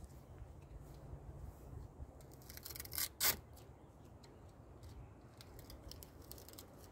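Small clicks and rustles of hands handling a plastic golf-cart phone holder and its strap, with one louder, short rasping sound about three seconds in.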